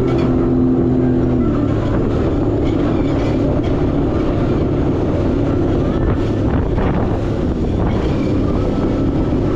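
Jet ski engine running steadily at speed while riding over the water.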